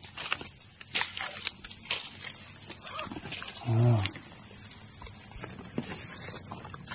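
A steady, high-pitched drone of insects, with scattered light rustles and clicks as dry leaves and twigs are handled in a plastic basin. A brief voiced sound comes a little before the middle.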